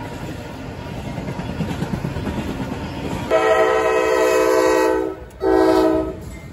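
Freight train cars rolling past with a steady rumble. About three seconds in, a diesel locomotive's air horn sounds a chord of several tones: a long blast, a brief break, a shorter blast, then another blast starting near the end.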